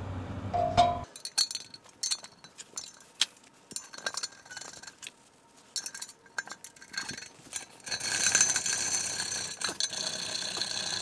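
Scattered light metallic clinks and taps as the fuel tank and its fittings are handled and fitted onto a Briggs & Stratton Model B engine. About eight seconds in, a steadier rubbing noise takes over.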